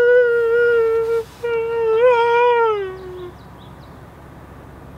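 A man wailing in anguish: two long, drawn-out cries, the second wavering and sliding down in pitch as it trails off about three seconds in.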